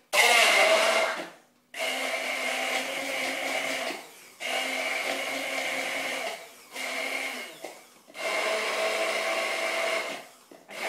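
Hand-held stick blender whizzing cherry tomatoes into garlic aioli in a jug. It runs in about five bursts of one to two and a half seconds with short pauses between, and the first burst is the loudest.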